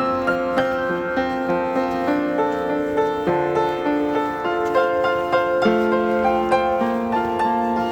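Background music: gentle solo piano playing a steady run of notes, about two a second.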